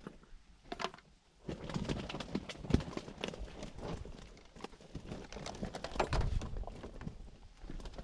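Irregular clicks, knocks and rustling of fishing tackle being handled, sparse at first and busier from about a second and a half in.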